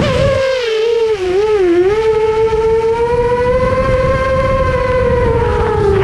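FPV race drone's motors whining, the pitch dipping and wavering in the first two seconds with throttle changes, then holding steadier and falling slightly near the end, over a low rumble of wind.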